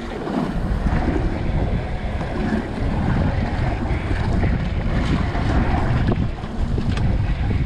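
Steady wind buffeting the microphone, with sea water slapping and washing against the hull of a small boat.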